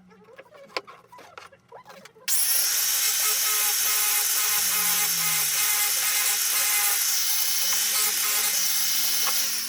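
A few light knocks and clicks, then a power tool in the woodshop starts abruptly about two seconds in and runs loud and steady, with a hissing high-pitched edge and a steady hum, until the end.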